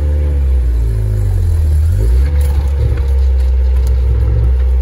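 Toyota truck's engine revving up and falling back, twice, as it climbs a steep, rough washout, heard from inside the cab over a heavy low rumble.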